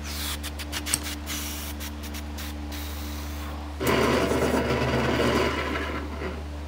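A hand handling things on a desk: a few light taps and rustles, then about two seconds of louder rubbing or scraping a little past halfway.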